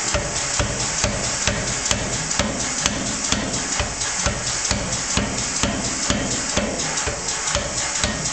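Power hammer with special dies striking a hot 3/4-inch round steel bar in a fast, steady run of blows, forging it into a grape shape.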